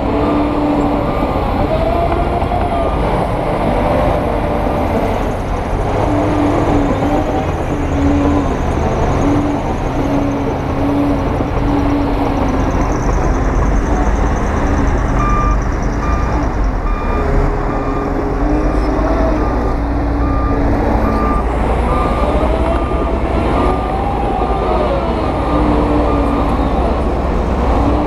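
Diesel engines of heavy earthmoving machinery running under load, with a reversing alarm beeping repeatedly over them.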